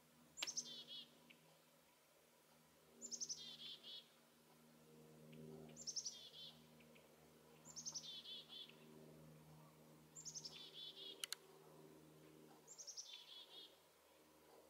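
A small songbird singing a short, high phrase that falls in a quick run of notes, repeated six times about every two and a half seconds.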